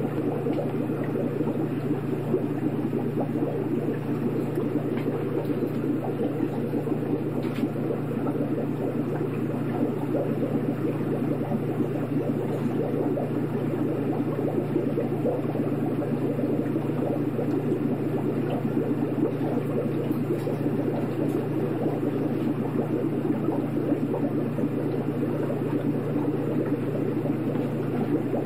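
Aquarium running: a steady low hum with a constant churning wash of moving water, with no change in it.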